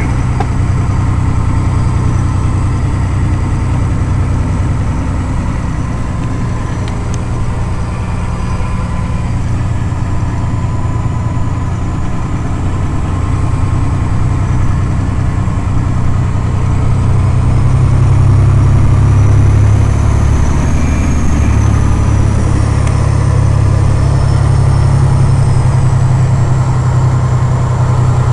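Log truck's diesel engine running steadily while driving, a strong low drone heard from inside the cab, growing a little louder about two-thirds of the way through.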